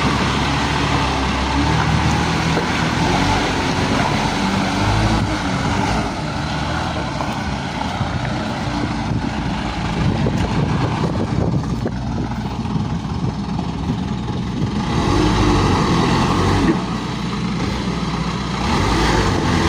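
Isuzu dump truck's diesel engine running, its revs rising and falling, with a somewhat quieter stretch in the middle.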